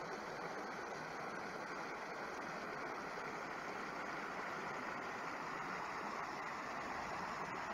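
Creek water rushing steadily over shallow rocky riffles.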